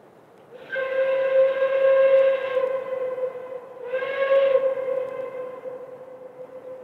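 Steam locomotive whistle blowing: one long blast of about two seconds, then a shorter blast about a second later, its tone trailing off slowly.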